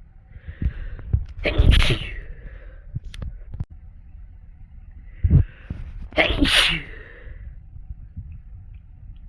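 A person sneezing twice, about four seconds apart. Each sneeze is led in by a breathy inhale and ends in a loud burst.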